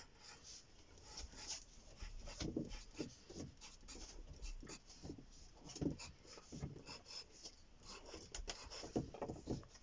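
Graphite pencil scratching on drawing paper in many short, quick strokes.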